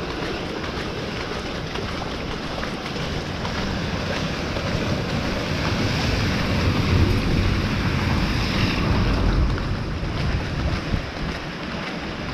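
Steady rain falling, with low wind rumble on the microphone that swells through the middle and eases near the end.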